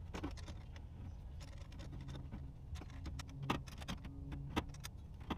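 Faint, scattered small metallic clicks and taps of nuts being fitted by hand onto the transmission mount studs under the car, with two sharper clicks about three and a half seconds in and near the end.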